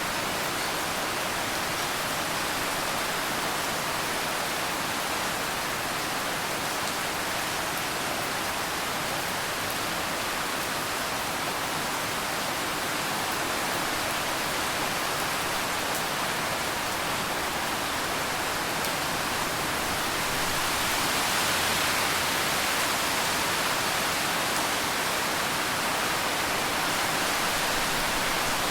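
Steady rain, an even dense hiss with no single drops standing out, swelling slightly a little after two-thirds of the way through.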